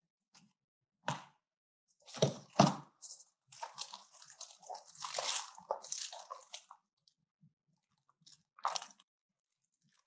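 Paper rustling and crinkling as cut-out paper pieces are handled on a table. There are a few short crackles, two sharper knocks about two seconds in, a busier stretch of rustling in the middle, and one more crackle near the end.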